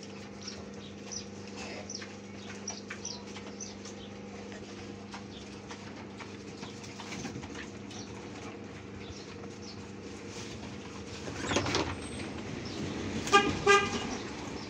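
Sow and piglets chewing leafy greens: faint crunching ticks over a steady low hum. Near the end comes a noisy swell, then two short high-pitched toots in quick succession, the loudest sounds.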